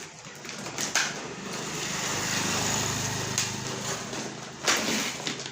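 A small engine running, swelling to its loudest midway and easing off again, with a few sharp clicks; the sound cuts off suddenly at the end.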